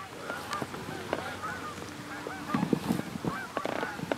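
A flock of Canada geese honking: many short, repeated calls overlapping, growing louder about two and a half seconds in.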